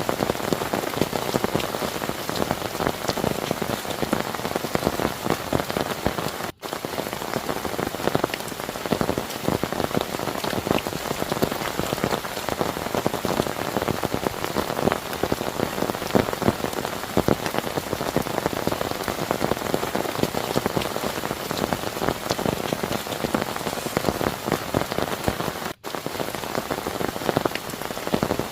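Heavy rain falling steadily, a dense patter of drops hitting a surface. The sound cuts out for an instant twice.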